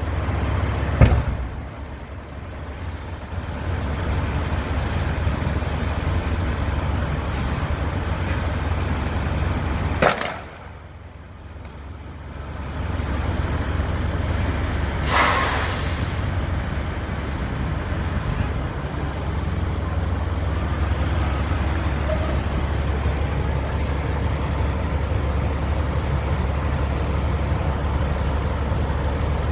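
Large truck fire burning, heard as a steady low rumble, with a sharp bang about a second in, another crack about ten seconds in, and a hissing burst lasting about a second near fifteen seconds.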